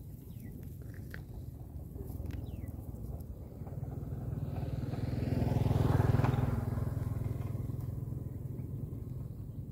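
A motor vehicle passing by, its engine rumble building to a peak about six seconds in and then fading away.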